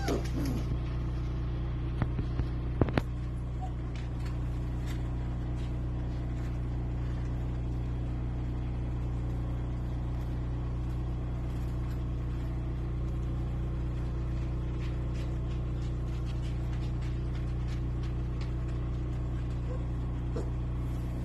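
A steady low machine hum, with a few sharp clicks about two to three seconds in.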